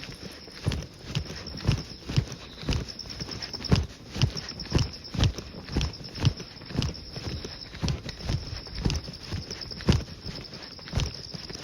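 A person's footsteps walking at an even pace, about two steps a second, over a steady high-pitched trilling of insects.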